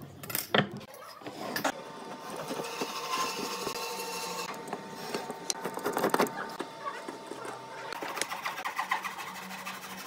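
Hand marking-out on pine boards: a sharp knock about half a second in, then a pen scratching along a steel rule and a marking gauge scraping and clicking across the wood.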